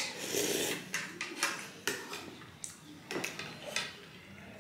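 Mukbang eating sounds: a sharp slurp of jhol broth from a spoon right at the start, then chewing and mouth noises, with a scatter of sharp clicks from forks and spoons on ceramic plates and a soup bowl.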